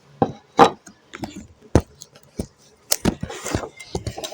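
Play-Doh toys and tools being handled: several sharp knocks and clicks, with a short rustling scrape about three seconds in.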